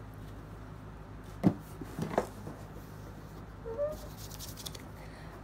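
Cardboard mailer box being handled: a sharp knock about one and a half seconds in, then a couple of softer knocks half a second later, over a faint steady room hum.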